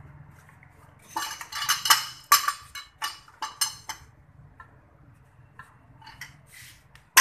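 Metal tools and brake parts clinking and rattling during brake pad replacement: a quick run of sharp metallic clinks, then a few fainter ones and one loud strike near the end, over a low steady hum.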